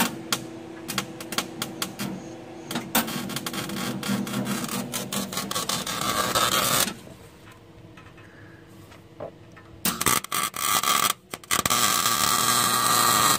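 Snap-on welder with argon shielding gas crackling as it lays a bead joining a new high-flow catalytic converter to the exhaust pipe. One burst of about seven seconds, a pause of about three seconds, then a second burst of about three seconds.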